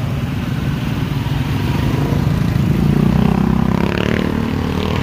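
Motorcycle engine of a sidecar tricycle passing close by, growing louder to a peak about three seconds in, then easing off as it goes past.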